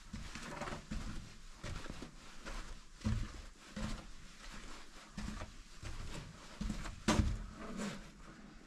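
Irregular soft knocks and scuffs in a small room, the sharpest about seven seconds in.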